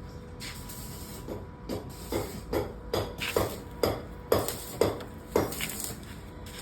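A series of short knocks, about two a second, that grow louder and then fade, over a steady low hum.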